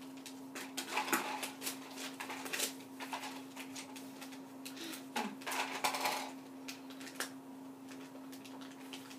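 Paper and cardboard being handled during puppet crafting with markers: scattered rustles and small clicks, in a few clusters, over a steady low hum.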